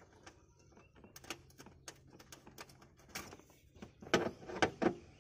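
Handling noise of a thin electrical wire being pulled and routed against a car's body panel: scattered light clicks and scrapes, then a few louder knocks and rustles about four seconds in.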